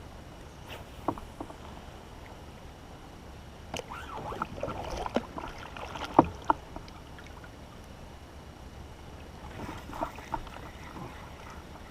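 Scattered knocks and clicks on a fishing kayak, with light water sounds, busiest in the middle and sharpest about six seconds in.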